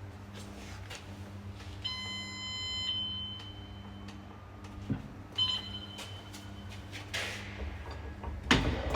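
A steady low hum, with a short electronic beep about two seconds in and a briefer one midway. Near the end come knocks and clatter of metal being handled, the loudest sounds here. The angle grinder is not running.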